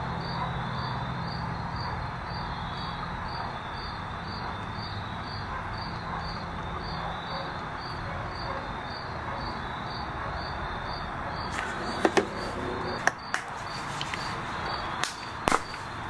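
Motor oil pouring from a bottle into a motorcycle engine's oil filler, with a high, regular chirp a few times a second behind it. A few sharp knocks near the end as the bottle and filler are handled.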